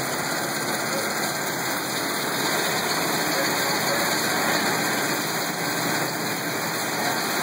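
Clear water gushing from a pipe outlet into a steel tank, a steady rushing splash: water coming off a dewatering system. Machinery runs underneath.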